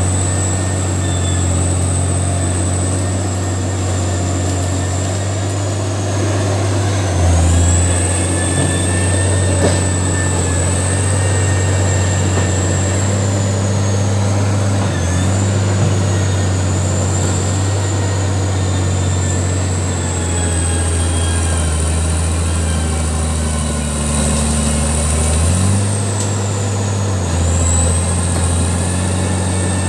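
Caterpillar D6D bulldozer's diesel engine running steadily under load as the blade pushes earth, with a faint high whine above it. The engine note shifts a few times: once about a quarter of the way in, and again a little before the end.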